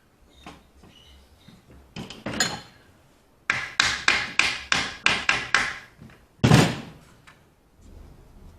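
Hand-tool work on timber: two knocks, then a quick run of about eight sharp knocks, roughly three a second, and one louder knock near the end.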